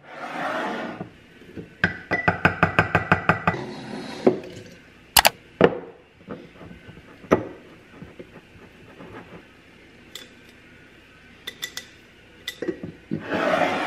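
A spatula stirring sourdough starter in a glass mason jar, clinking rapidly against the glass for a second or two, then single knocks and clinks of the jar and spatula. Brief rushing swells of noise come at the start and near the end.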